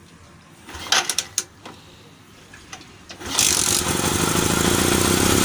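Bajaj Platina 110 single-cylinder motorcycle engine being kick-started: a few metallic clacks of the kick lever about a second in, then the engine catches about three seconds in and runs steadily, briefly, with no engine oil in it yet. Judged by the mechanic to make no abnormal noise after the clutch-side cover was refitted.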